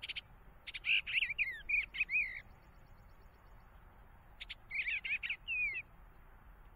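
Bluebird singing two short warbled phrases, each about a second and a half long, with a couple of seconds' pause between them.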